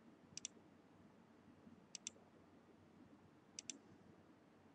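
Computer mouse clicking three times, evenly about every second and a half, each click a quick double tick, over faint room tone.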